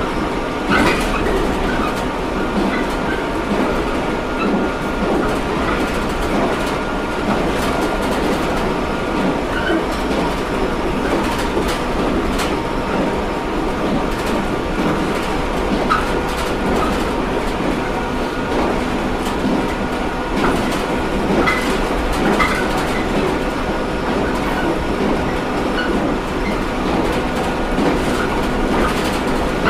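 JR Kyushu 713 series AC electric multiple unit running at a steady speed: a continuous hum of motor and running gear over wheel-on-rail noise. Sharp clacks from rail joints come every few seconds.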